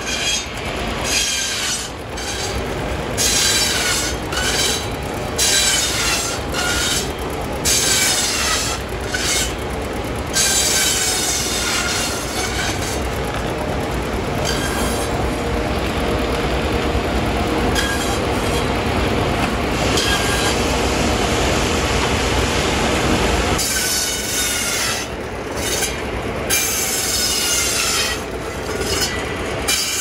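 Shingle mill's circular saws slicing shingles off a wooden block, each cut a screeching whine, about one a second. About ten seconds in the cutting turns into a steadier, denser run, and the quick cuts resume near the end.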